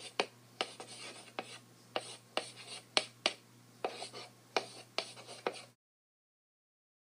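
Chalk writing on a blackboard: short tapping and scratching strokes, about two a second, that cut off suddenly about two-thirds of the way through.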